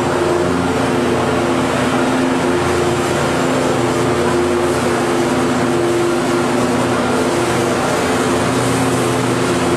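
A five-ply corrugated cardboard production line running: a steady machine drone with a few constant low hums, unchanging throughout.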